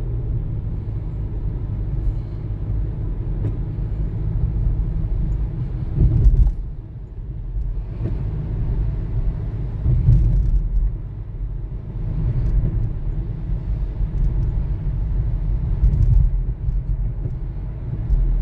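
Steady road noise inside a moving car's cabin: a low rumble of engine and tyres on wet pavement, swelling louder a few times.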